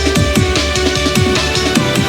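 Electronic dance music with a fast drum-and-bass beat and heavy bass; the bass drops out near the end.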